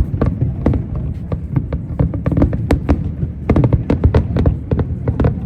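Fireworks going off: a dense run of irregular sharp bangs and crackles over a steady low rumble.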